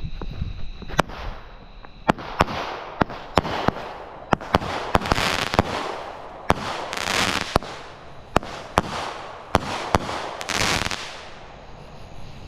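Fox Fireworks Ice Cube 9-shot firework cake firing: a quick run of sharp bangs and pops with hissing in between, starting about a second in and ending about eleven seconds in.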